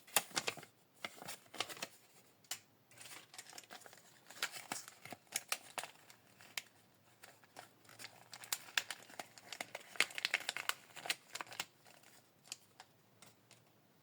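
A small plastic wrapper on a miniature collectible being crinkled and torn open by hand, in quick irregular crackles that thin out to a few clicks near the end.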